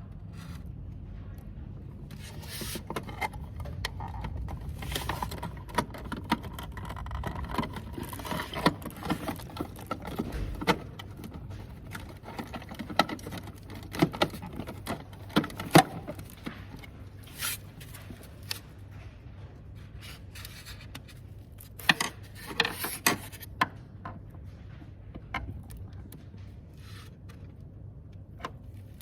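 Irregular clicks, knocks and short scrapes of parts and tools being handled while fitting a fridge/freezer water valve, over a steady low hum. The sharpest knocks come about halfway through and again later in a quick cluster.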